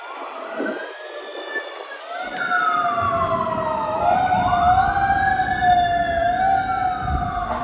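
Fire engine sirens wailing, two sirens rising and falling in pitch and overlapping, with the truck's engine rumble growing louder about three seconds in as the apparatus approaches.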